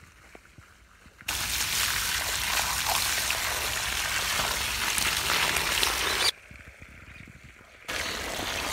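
Water gushing from a garden hose fed by a submersible pump and splashing onto wet soil. It starts abruptly about a second in, cuts off about two seconds before the end, and starts again near the end.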